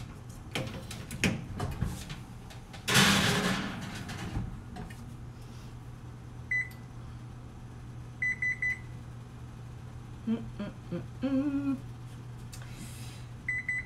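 Electronic oven control panel beeping as buttons are pressed to set the temperature: a single short beep, then a quick run of beeps, then more near the end, over a low steady hum. A burst of clatter about three seconds in.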